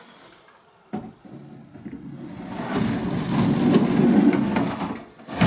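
Furniture being handled: a click, then a rumbling slide that swells for a couple of seconds, ending in a sharp knock, like a drawer or sliding part being run along its runners and stopped.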